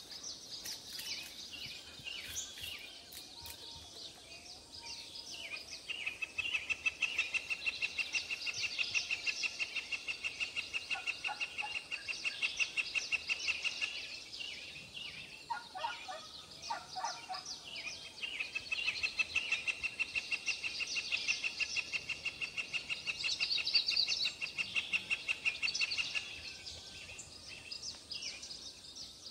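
Animal calls: a high, rapid pulsing trill that runs in two long bouts of several seconds each, with a few short, lower calls between them.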